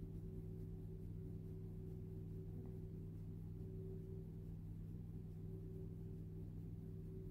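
Quiet ambient background music: a steady low drone of a few held tones, with no change or break.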